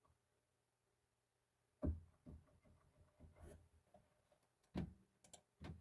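Near silence, broken by a few faint, short knocks and rustles: the first and loudest about two seconds in, the rest scattered through the second half.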